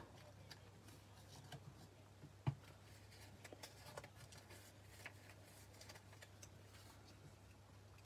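Near silence: faint rustles and light clicks of cardstock being handled on a craft mat, with one sharper tap about two and a half seconds in, over a low steady hum.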